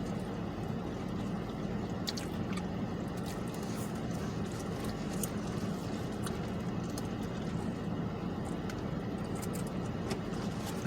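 Eating sounds: small wet squishes and scattered light clicks of chewing and food being handled, over a steady low hum.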